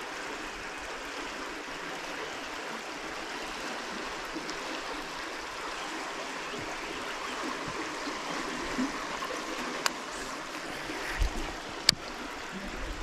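Steady rush of flowing river water, with a couple of sharp clicks near the end.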